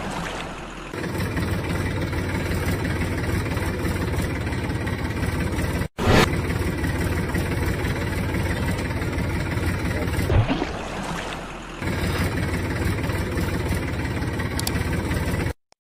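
Tractor engine running steadily. The sound cuts off abruptly for a moment about six seconds in and again near the end.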